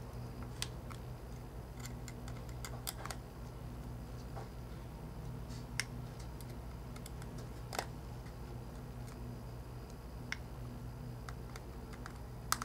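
Scattered small clicks and ticks of a tiny screwdriver working the screws of an iPhone 4's internal cable-cover plate, a few sharper ones a couple of seconds apart, over a steady low hum.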